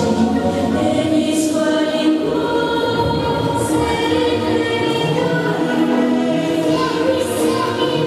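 Recorded choral music with voices holding sustained chords, played loud over a gym's sound system.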